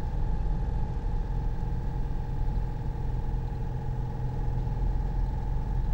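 Car engine running steadily: a constant low hum with a few steady tones, unchanging throughout.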